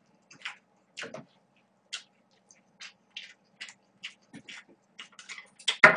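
Close-miked mouth sounds of a person eating cold spicy noodles: a run of short, irregular wet chews and slurps, with a louder slurp near the end.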